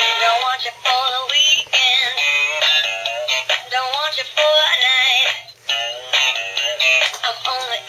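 Battery-operated dancing plush cat toy playing its song: a high singing voice over a tune, thin-sounding with no bass, with a short break about five and a half seconds in.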